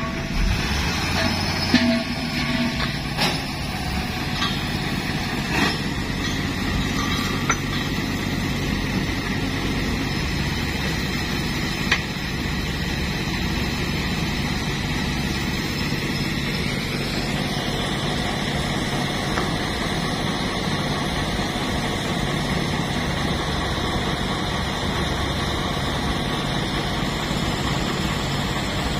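Tow truck's engine running steadily, with a few short sharp clicks and knocks in the first dozen seconds.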